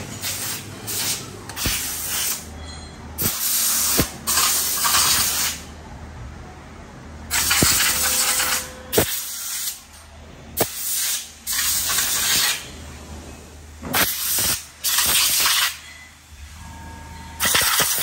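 Handheld air blow gun hissing in about a dozen short blasts of compressed air, cleaning an aluminium motorcycle wheel hub, with a few sharp knocks in between.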